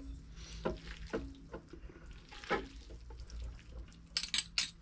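Metal fork and spoon tossing spaghetti in a frying pan: wet, slippery stirring with scattered scrapes and clinks of the utensils against the pan, and a quick run of sharp clinks near the end.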